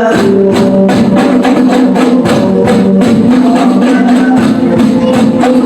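Hadroh ensemble of rebana frame drums beaten in a fast, dense rhythm, with a steady held tone beneath the strokes.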